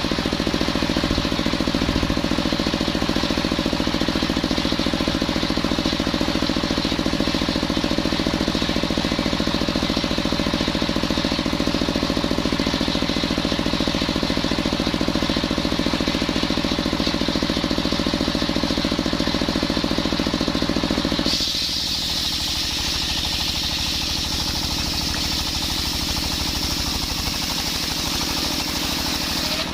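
Circular saw machine running steadily while sawing coconut wood into beams, with a rapid low mechanical pulse under it. About 21 seconds in the sound changes abruptly: a higher hiss comes up while the middle of the sound drops away.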